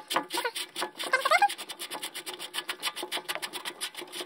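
Sink basket strainer locknut being unscrewed by hand along its threads: a fast, even run of scraping ticks as the freshly loosened nut turns.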